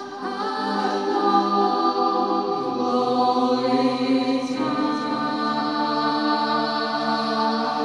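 Music with a choir singing long held chords, the harmony changing a few times.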